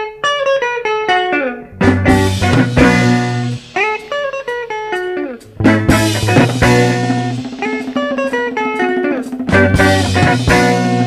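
Background music: a plucked guitar playing quick runs of notes over bass and light drums, starting right after a brief silence.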